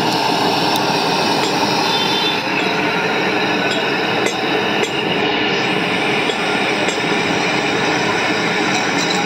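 Gas burner running with a steady rushing noise under a large brass pot of boiling milk tea, with a few faint ladle clinks as the tea is stirred.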